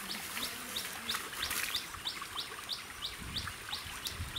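A bird calling, a short rising chirp repeated evenly about three to four times a second.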